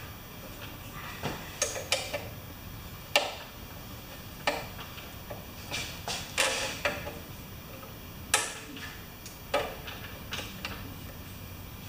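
Irregular small clicks and knocks of metal and plastic as the throttle cable is worked free from a push lawn mower's handle and engine.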